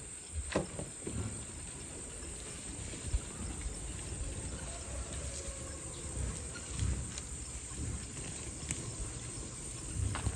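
Steady high-pitched chorus of insects, with an uneven low rumble and a couple of short knocks underneath.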